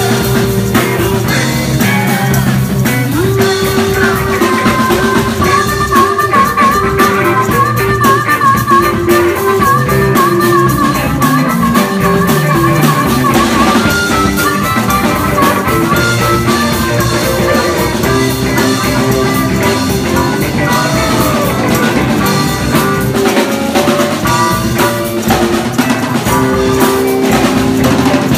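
Live blues-rock band playing loud: electric guitars and a drum kit, with a harmonica played into the vocal mic carrying a wavering lead line.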